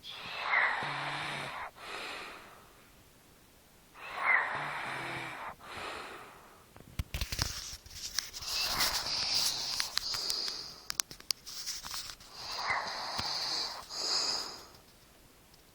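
A girl breathing noisily in her sleep: wheezing, snore-like breaths about every four seconds, each opening with a brief high squeak. A run of sharp clicks comes in the middle.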